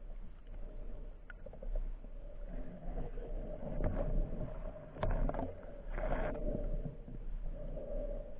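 Muffled underwater sound picked up by a camera in its waterproof housing: a steady hum under water movement, with a few short rushing surges, the strongest about six seconds in.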